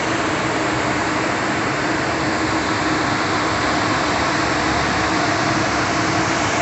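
A heavy diesel engine running steadily at constant speed: an even mechanical drone with a steady low hum.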